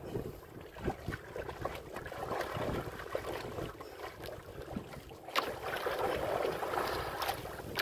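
Choppy sea water splashing and slapping against the side of a small wooden outrigger boat, swelling twice, with wind on the microphone and a few light knocks.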